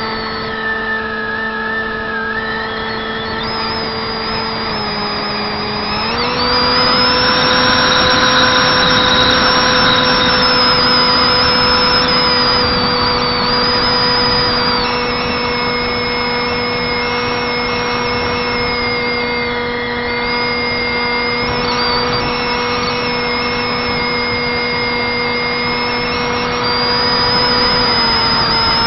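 Brushless electric motor and 6x4 pusher propeller of a Zeta Wing Wing Z-84 flying wing running in flight, a steady pitched hum over wind rushing past. It steps up in pitch and loudness about six seconds in and drops back just before the end, with a high wavering whine above.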